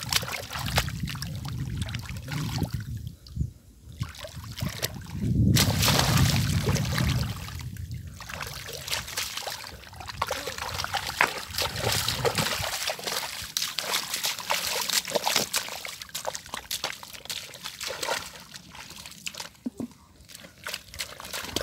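Shallow muddy water splashing and sloshing in irregular bursts as hands grope through it and legs wade in the mud.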